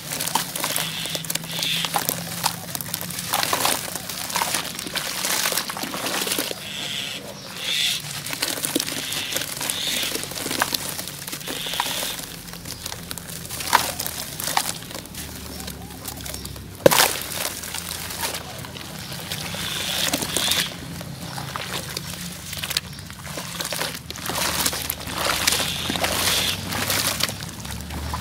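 Lumps of dry brown dirt crumbled by hand into a basin of water: a steady gritty crumbling and pattering of falling grains with small crackles, turning to sloshing of wet mud near the end. One sharp click about 17 seconds in.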